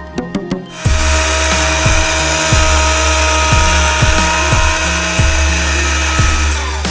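Breville personal blender's motor whirring steadily while it blends a thick brownie batter of banana, egg, protein powder and cocoa; it starts about a second in and stops just before the end.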